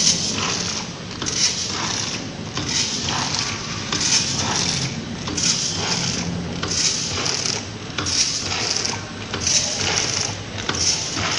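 Vertical form-fill-seal packing machine running on pistachio nuts, a mechanical clatter and rush repeating about every one and a half seconds over a steady hum, its bag cycle.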